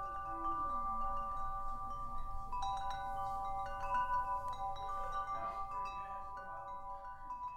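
Chimes ringing: several overlapping, sustained bell-like tones, with new notes struck at irregular moments and the sound slowly fading near the end.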